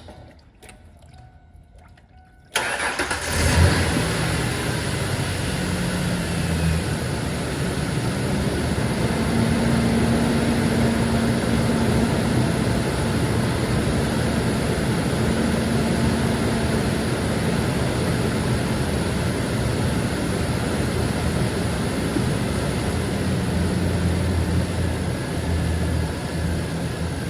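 A Ford Ranger pickup's engine starts about two and a half seconds in, flares briefly as it catches, then idles steadily. It is being run with the heater on to purge air from the freshly refilled cooling system.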